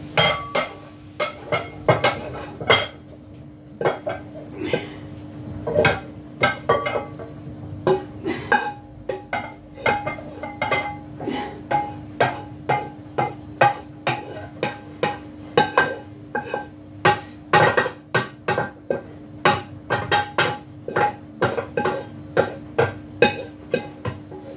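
A utensil scraping and knocking against the inside of a large non-stick pan as stir fry is scraped out into a bowl: repeated sharp clanks, two or three a second, some with a brief metallic ring.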